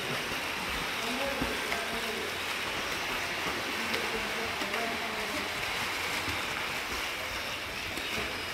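Swimmer's arm strokes and kicks splashing through pool water, a steady wash of churning water, with faint voices in the background.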